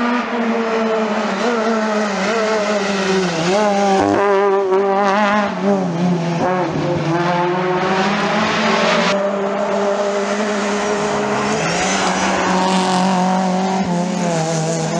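Rally cars' engines revving hard on a special stage, the pitch climbing and falling again and again with gear changes and lifts. The sound changes character partway through as one car gives way to another.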